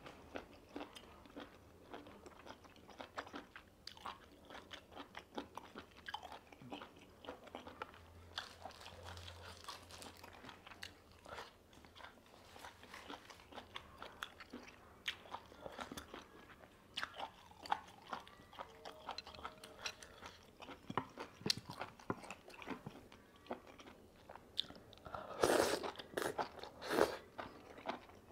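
Close-up chewing and biting of crunchy, sauced octopus, with many small wet crunches and mouth clicks. A few louder bursts come near the end.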